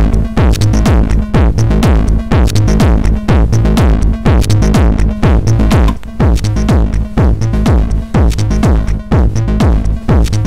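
A techno pattern from a Korg Electribe ESX drum machine/sampler, with a steady, fast beat and bass, played through an Etek Optima compressor/limiter. The limiter is engaged on a preset for most of it and switched to bypass near the end.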